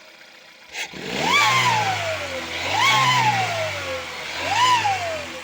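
Volkswagen 1.4 TSI engine revved three times, with a short click just before the first blip. Each blip brings a loud turbocharger whistle that rises sharply and then slowly falls as the revs drop: the whistle of a turbo failing so badly that the car is no longer fit to drive.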